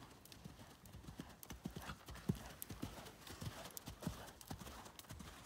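A horse's hooves thudding faintly and unevenly on sand arena footing as it canters.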